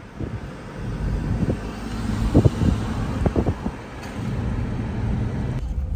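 Car running at low speed, heard from inside the cabin: a steady low engine and tyre rumble with a hiss of road and wind noise, and a few short knocks around the middle.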